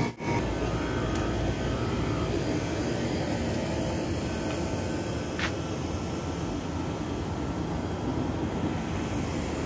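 Steady hum of distant road traffic, with a brief dropout right at the start and a couple of faint clicks.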